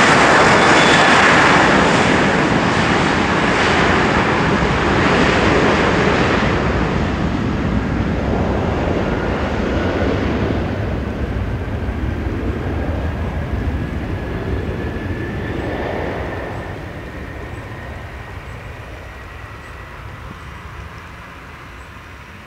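McDonnell Douglas MD-90-30 airliner's two rear-mounted IAE V2500 turbofan engines at takeoff power on the takeoff roll, the noise fading steadily as the jet moves away down the runway and lifts off. A thin steady whine holds through the later part.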